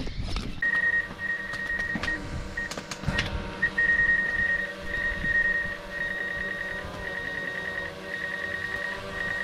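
Small quadcopter drone's motors and propellers whining as it hovers close by: a steady high whine with several tones that starts about half a second in, with a knock or two near the start.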